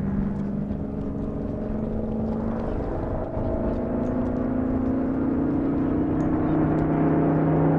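Saab B17A's Pratt & Whitney Twin Wasp radial engine in flight, a steady propeller-aircraft drone. Its pitch shifts as the plane turns, and it grows louder as the aircraft comes toward the listener.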